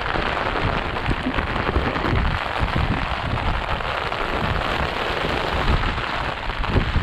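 Heavy wind-driven rain pouring down with a steady hiss, while gusts of wind buffet the microphone in uneven low rumbles.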